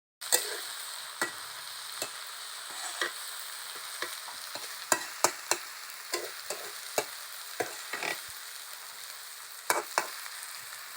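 Banana-flower bhaji sizzling in a pan while a spoon stirs it, scraping and clinking against the pan in sharp, irregular knocks.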